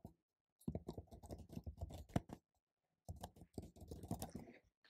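Computer keyboard typing, faint: two quick runs of key clicks with a short pause between, as an email address and then a password are typed into a form.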